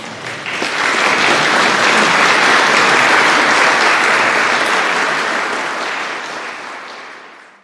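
Audience applauding: many people clapping together, swelling over the first second, then fading toward the end and cutting off suddenly.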